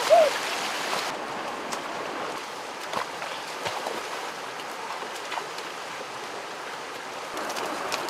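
Shallow rocky stream rushing steadily, with a few small splashes of feet wading through the water.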